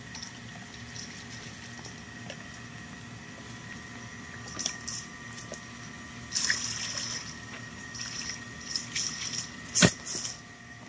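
Water splashing and dripping as it is poured from a plastic tub and rinsed by hand over a gutted groundhog carcass, in uneven bursts. A single sharp knock near the end.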